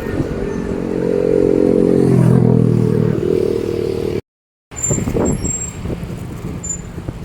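Backhoe's diesel engine running hard under load, its note shifting about two seconds in. After a brief dropout, the engine is lower, with knocks and short high squeaks from the working arm and bucket.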